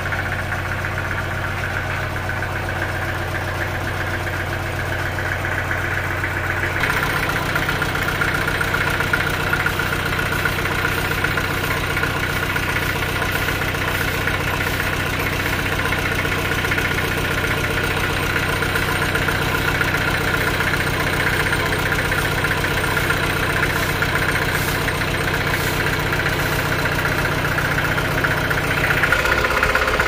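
Stationary diesel engine driving a band sawmill, running steadily. About seven seconds in, its sound shifts and gets a little louder, then holds steady.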